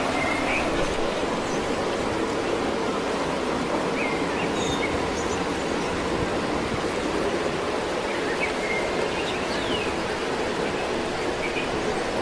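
Steady rushing water of a forest stream or waterfall, at an even level, with a few short high chirps over it.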